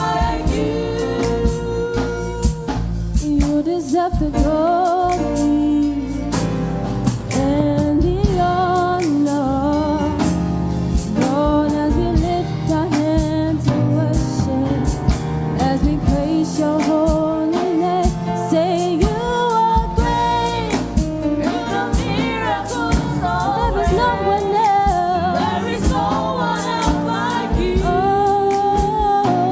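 Gospel praise singing: voices carrying a melody over a band with bass and a steady drum beat.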